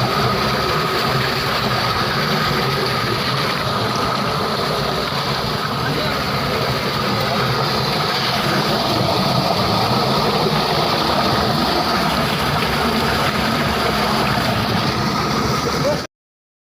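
Running water, a steady rushing that cuts off suddenly near the end.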